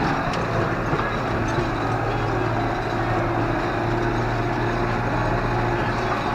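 Tractor engine running steadily while pulling a field roller, a constant drone with no change in pitch.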